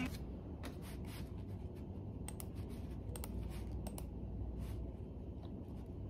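Quiet room tone with a low hum and a dozen or so faint, irregular small clicks and ticks.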